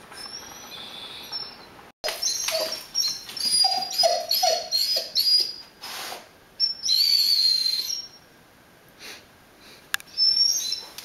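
Rhodesian Ridgeback whining in high, squeaky tones: a quick run of short whines with lower falling whimpers from about two seconds in, one longer whine past the middle, and more short whines near the end. It is the dog begging, set off by the smell of ground beef cooking.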